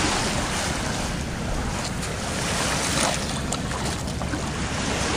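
Wind rushing across the microphone, with small waves lapping at the riverbank. A few faint, short sharp noises come around the middle.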